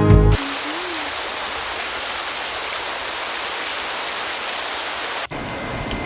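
Guitar music ends in the first half-second; then a steady, even hiss runs until it cuts off suddenly about five seconds in, giving way to quieter room sound.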